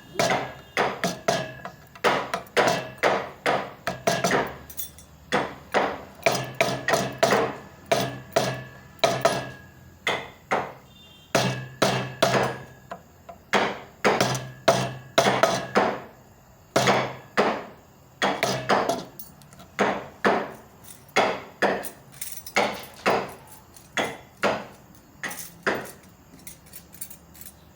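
Carving chisel struck repeatedly into wood, a steady run of sharp blows about two a second with a few short pauses.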